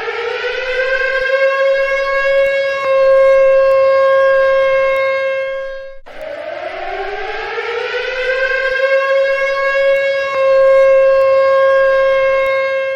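Civil defense siren sounding a nuclear-attack warning. Its pitch rises for about two seconds to a high steady tone and holds, then cuts off abruptly about six seconds in and starts rising again.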